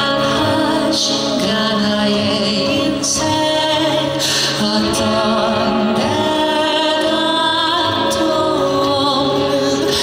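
A man singing a ballad live into a microphone over instrumental accompaniment, holding long notes with a slight waver.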